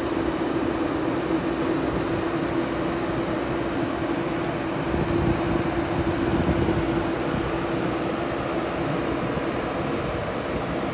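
Diesel engine of a JCB backhoe loader running steadily under load while its front loader bucket pushes a mound of soil, with a steady humming tone over the engine noise and a slight swell about five seconds in.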